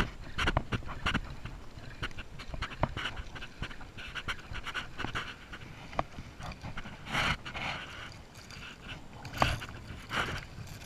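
A hooked fish being reeled to the side of a kayak on a spinning reel: irregular clicks and short rustling bursts, with the fish splashing at the surface near the end.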